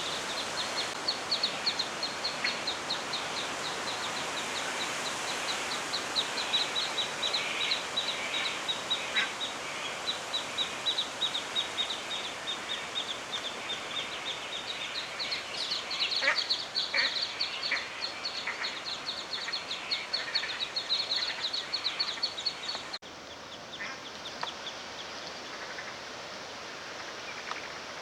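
Australian shelducks calling: a fast, high chatter of many calls, with lower, separate calls scattered through it. The sound drops abruptly quieter near the end.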